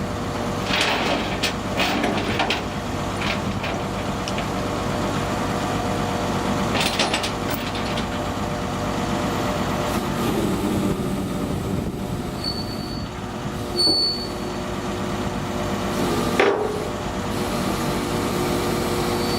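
Heavy truck engine running steadily, with metallic knocks and clanks in the first few seconds and again about seven seconds in, a single loud knock near the end, and three short high beeps later on.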